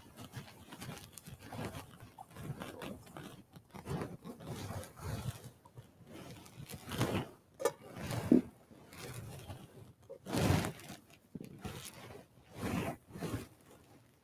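Irregular rustling, scraping and soft knocks from people moving and handling things at a church altar, in short uneven bursts with the loudest about halfway through and again a few seconds later.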